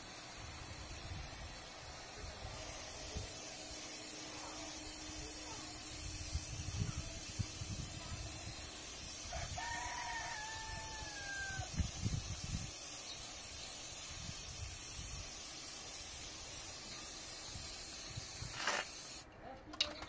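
Aerosol spray-paint can hissing steadily as paint is sprayed onto a wall, cutting off suddenly about a second before the end. A rooster crows once midway.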